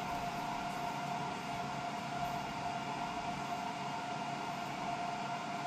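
Steady fan hum from a UV laser engraver idling between jobs, with a constant mid-pitched whine over an even hiss.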